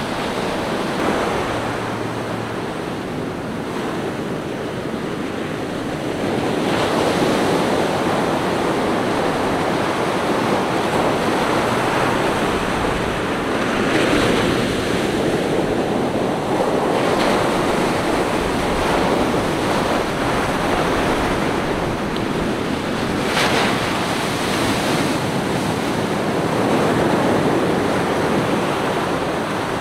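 Surf on a sandy beach: small waves breaking and washing up the sand, rising and falling in slow swells, with one brief sharper splash about three-quarters of the way through.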